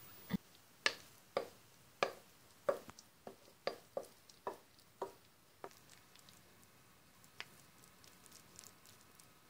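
A kitchen utensil knocking against a bowl and pan as a thick mixture is scraped out into a frying pan: about a dozen sharp knocks, roughly two a second, stopping a little past halfway, followed by a few faint clicks.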